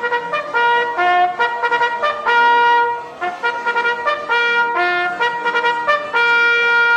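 Trumpet call: a fanfare of short repeated notes broken by a few held ones, ending on the longest held note. It is the summons that calls the costumed figures to gather for the ceremony.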